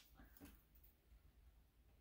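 Near silence: quiet room tone.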